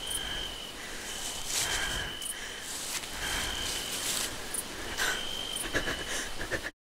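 Night-time forest ambience: a steady hiss with a high cricket chirp that repeats about every one and a half seconds, and a few faint ticks and rustles. It cuts off abruptly near the end.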